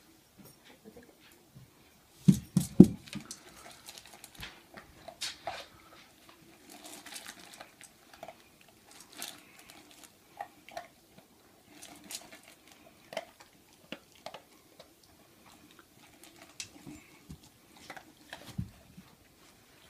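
Great Pyrenees puppy eating dry kibble from a metal-lined bowl: irregular crunching and clinking of kibble against the bowl, with a few heavier knocks about two seconds in.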